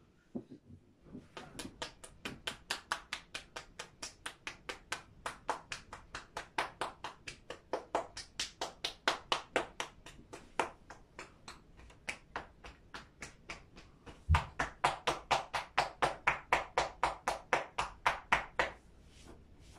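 Percussion massage (tapotement): the therapist's hands strike the seated client's head and upper back in a fast, even rhythm of crisp slaps, about four a second. The strikes grow louder about two-thirds of the way through and stop near the end.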